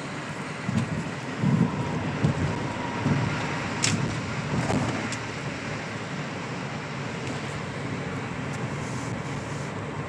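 Steady road noise inside a moving car's cabin as its tyres run on a snow-covered highway. Uneven low thumps come in the first half, along with one sharp click about four seconds in.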